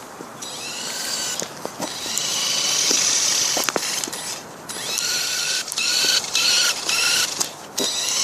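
Small electric motors of a homemade model car driving its wheels at higher speed. They whine in spurts, rising in pitch as they speed up and stopping and starting several times, with a few sharp clicks.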